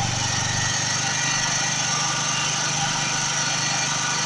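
Small petrol generator engine running steadily at constant speed.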